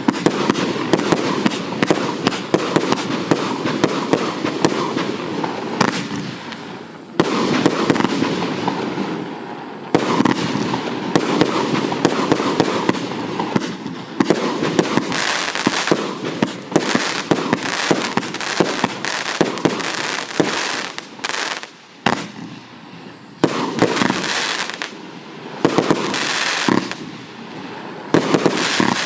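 Kaiser 1.5-inch consumer fireworks cake firing: a rapid, continuous string of shots and bursts with crackling, broken by a few short lulls.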